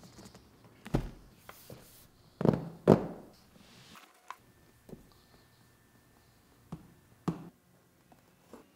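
A cardboard presentation box being set down and handled on a table: a few dull knocks and thuds, the two loudest close together about two and a half to three seconds in, then lighter taps as the outer sleeve is slid off.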